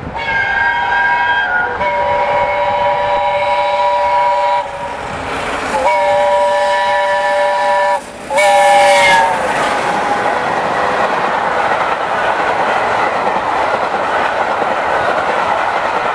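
Peppercorn A1 steam locomotive 60163 Tornado sounding its whistle, several notes at once, in four blasts: three long and a last short one. From about nine seconds in, the engine and its coaches rush past with the wheels clattering over the rail joints.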